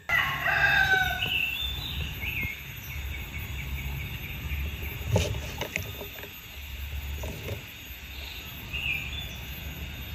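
A rooster crowing once, loudest at the very start, followed by small birds chirping in short high notes. A single sharp click comes about five seconds in, over a steady low rumble.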